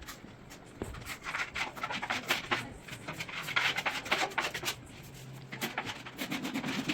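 Irregular scratching and rubbing: a run of short scrapes and light clicks.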